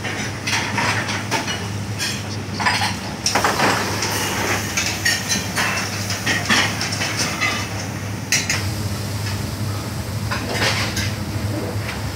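Commercial kitchen clatter: metal pots, pans and utensils clanking again and again over the steady hum of the range's extractor hood.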